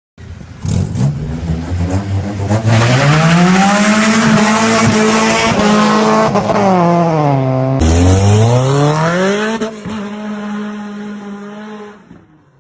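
A car engine revving hard over a hiss of tyre squeal. The revs climb, hold high, drop away, then rise again sharply about eight seconds in, before settling lower and cutting off near the end.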